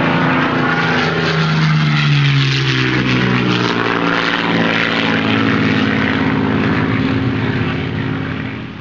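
Aircraft engine drone, its pitch falling over the first three seconds, then holding steady and fading out near the end.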